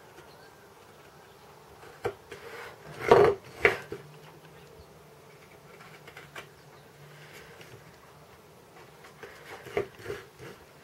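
A few short knocks and scrapes over a faint low hum, the loudest two about three seconds in and a smaller pair near the end.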